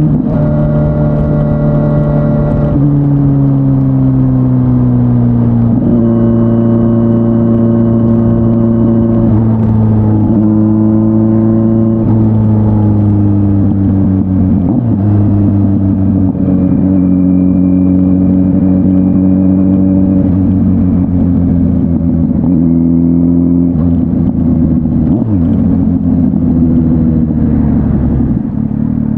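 Kawasaki Z900's inline-four engine through an SC-Project S1 aftermarket exhaust, heard while riding at moderate speed. The engine note shifts up and down several times as the throttle and gears change, easing down in pitch in places and stepping back up at others.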